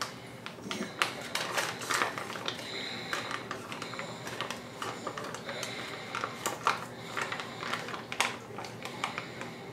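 Plastic vacuum-sealer bag crinkling as it is held open and a metal spoon is worked inside it, giving irregular sharp crackles and clicks.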